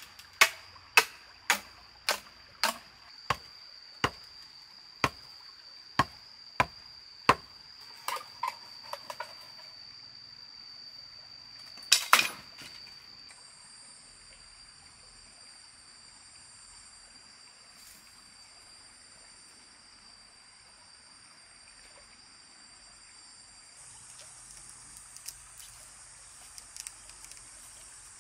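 A run of about a dozen sharp knocks, like chopping strikes, coming about every half second at first and spacing out before stopping about seven seconds in. A few lighter taps follow, then one loud double knock near twelve seconds. Under them runs a steady high insect drone, joined by a second, higher drone after the knocks stop.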